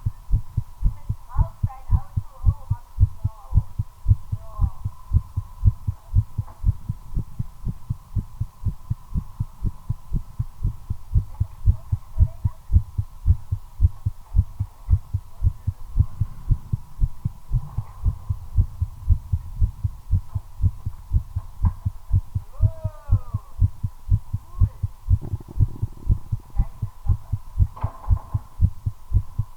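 Human heartbeat picked up close to the chest: a quick, regular run of low thumps, with a faint steady hum behind it. The heart is beating fast from the nicotine of a cigarette being smoked.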